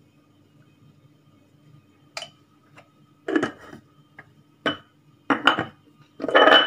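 Small glass spice jar knocking and clinking against hard surfaces as ground ginger is shaken out of it onto a glazed terracotta dish. About seven short knocks and clatters start about two seconds in, and the loudest comes near the end.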